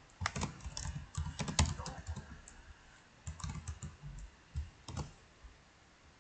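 Typing on a computer keyboard: a quick run of keystrokes over the first two seconds, then two shorter runs about three and about four and a half seconds in.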